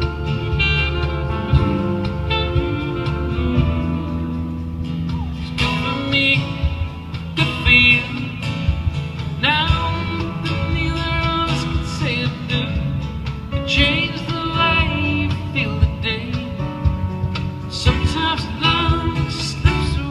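Live acoustic band playing a soft-rock ballad: acoustic guitar with keyboards, bass and light percussion, and a lead vocal that comes in and out in phrases.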